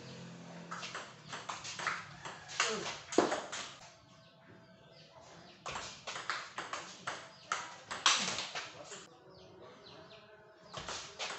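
Table tennis ball clicking back and forth off the bats and the table in two quick rallies, the second starting about six seconds in.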